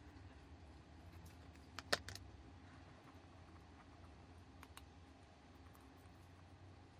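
Light clicks and taps of a palette knife being handled over a wet acrylic canvas: a sharp double click about two seconds in and a few faint ticks a little later, over a low steady hum.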